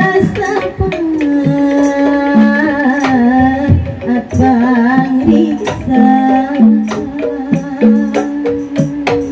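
Sundanese calung music: a woman sings long, wavering notes through a microphone over a steady beat of bamboo calung tubes and kendang drum strokes.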